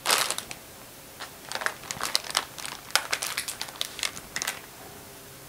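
Plastic anti-static bag crinkling as a graphics card is drawn out of it and set down on it: a loud rustle at first, then a string of sharp, separate crackles that stop about four and a half seconds in.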